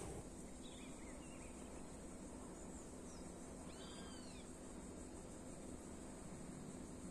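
Faint bird calls: a few short chirps about a second in, then a clearer pair of arched calls around four seconds, over a steady high hiss of background noise.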